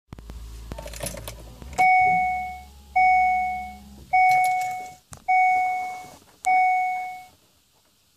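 Car's dashboard warning chime ringing five times, a little over a second apart, each a two-tone ding that fades away. It is the reminder that sounds when the ignition is switched on with the seatbelt warning lit. A few light clicks and a low hum come before the first ding.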